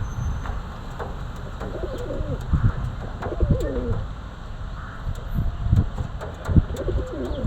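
Pigeon cooing: three warbling coo phrases, about two, three and a half and seven seconds in. Low thuds and rumbling come in between, the loudest a little after six seconds.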